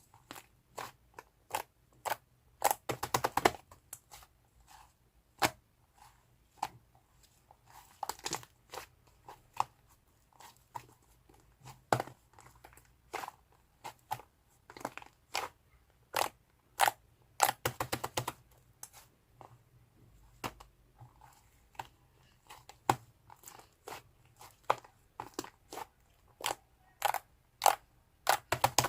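Soft, fluffy slime squished and pressed by hand, giving irregular sharp popping and clicking sounds as air pockets burst, with quick clusters of pops now and then.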